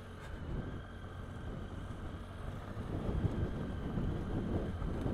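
Triumph Tiger 800's three-cylinder engine running steadily as the motorcycle rides along a gravel track, with tyre and gravel noise and wind buffeting the microphone.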